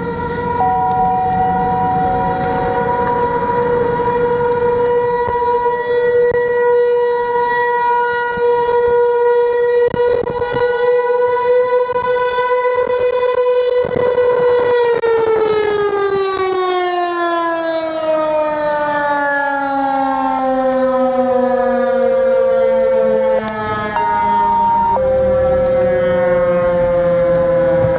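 Federal Signal Equinox outdoor warning siren sounding one steady tone, then from about halfway winding down, its pitch falling slowly. A few short steady tones at other pitches come and go over it.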